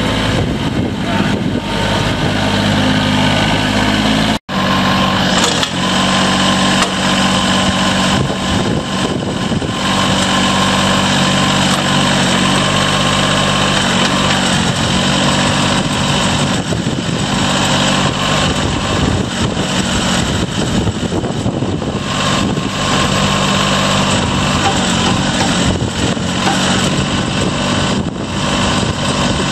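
Bobcat CT122 compact tractor's diesel engine running steadily while the backhoe attachment is worked. There is a brief cut in the sound about four seconds in.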